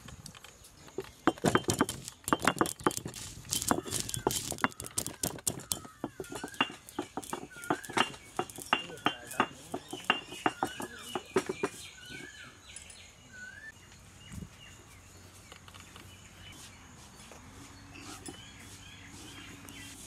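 Black peppercorns cracking and crunching as they are crushed on a stone grinding slab: a fast run of sharp stone-on-stone clicks that stops about twelve seconds in. Small birds chirp in short calls over the second half of the crushing.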